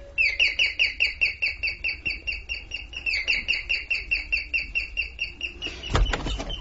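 A drama sound effect of rapid, evenly spaced high chirps, about five a second, with a brief break partway through, then a thump near the end.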